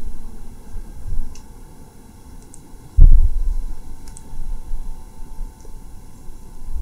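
Muffled low thumps and rumble, the loudest a sudden bump about three seconds in, with a few faint ticks between.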